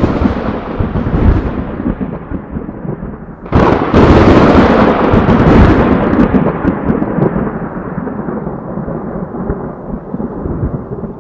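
Thunder sound effect: a rumble at first, then a sharp crack about three and a half seconds in, followed by a long rolling rumble that slowly fades.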